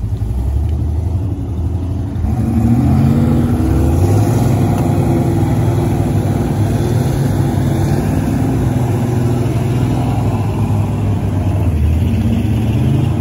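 Off-road vehicle engine running and revving, its pitch rising about two seconds in and again near the end.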